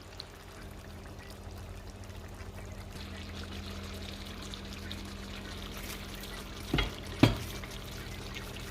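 Liquid ingredients pouring into a cooking pan, a soft trickling that builds over the first few seconds. Two sharp knocks come half a second apart near the end.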